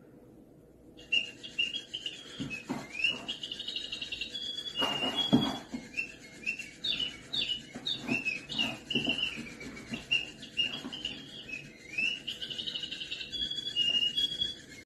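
Rapid, high bird-like chirps and short trills that start about a second in and keep going, with a few soft knocks underneath.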